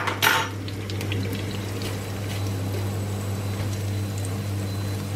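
Breaded cheese patties shallow-frying in hot oil in a frying pan, sizzling steadily with fine crackles, over a steady low hum. A brief louder burst of sizzle comes right at the start.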